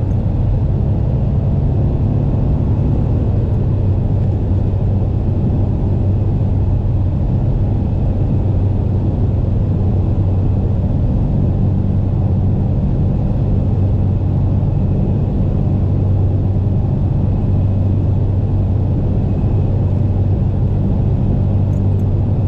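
Interior of a car cruising at steady highway speed: a constant low engine and road drone that holds one pitch throughout.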